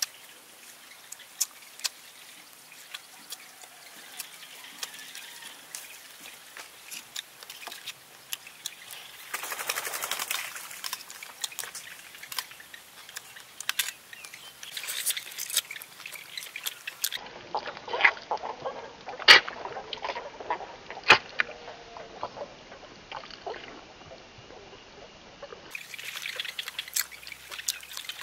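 A man eating snake curry by hand: close wet chewing, lip-smacking and sucking on pieces of snake, heard as many short wet clicks and smacks, the sharpest pair about two-thirds of the way through.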